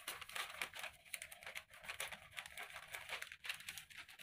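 Faint rustling and crinkling of a paper sewing pattern as a cut strip is folded over into a pleat and pressed flat by hand, in many small irregular crackles.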